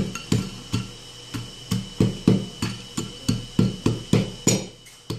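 Wooden pestle pounding Oreo cookies in a glazed ceramic bowl, crushing them lightly: a run of dull knocks about three times a second, with a short pause near the end.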